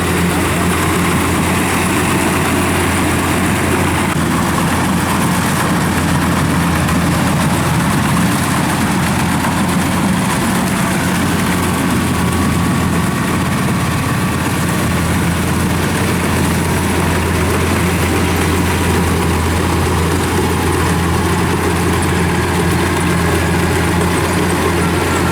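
Kubota DC-105X combine harvester's diesel engine running steadily at an even speed, a constant low hum with no change in pitch.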